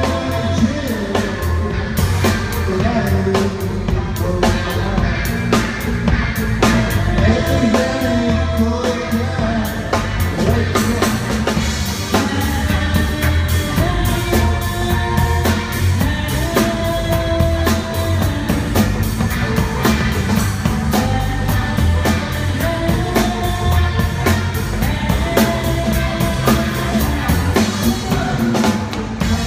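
Live band playing a rock song: a drum kit keeping a steady beat under electric guitars and a singing voice.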